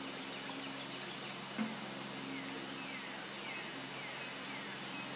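Steady outdoor ambience with an insect drone holding one high pitch. A few faint short falling chirps from a bird come through in the middle, and there is a soft bump about a second and a half in.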